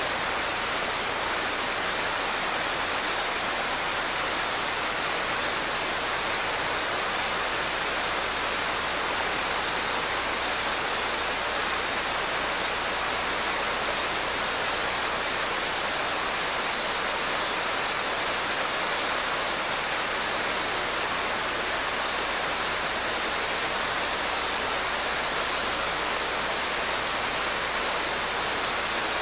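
Mountain stream rushing steadily over rocks. A robust cicada (minmin-zemi) sings in rapid pulses over it, faint at first and louder from about two-thirds of the way in.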